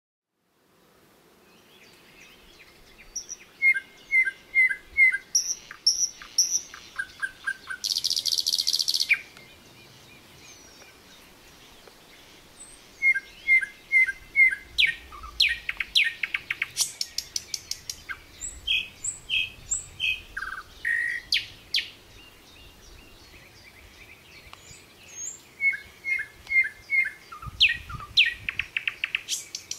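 Several songbirds singing and calling. One repeats a short four-note phrase three times, and others add high chirps and fast trills. About eight seconds in, a dense buzzing rasp lasts about a second.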